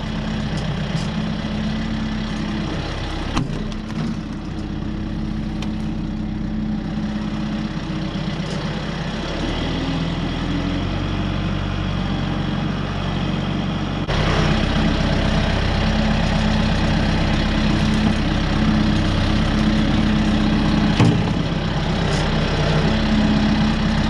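Kubota M6060 tractor's four-cylinder diesel engine running steadily. There is a sharp knock a few seconds in, the note shifts about ten seconds in, and the engine grows louder about fourteen seconds in.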